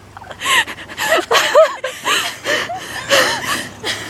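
Heavy panting breaths, roughly two a second, some with short voiced grunts or sighs.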